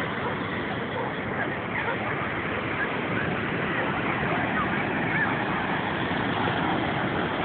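Busy beach ambience: a steady wash of wind and surf noise with faint distant voices and short high calls scattered through it.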